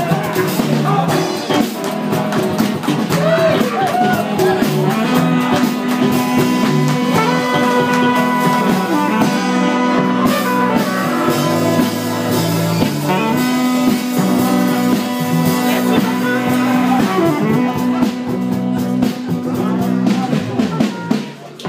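Live band playing with electric guitar and drum kit, loud and continuous; the music dips briefly near the end.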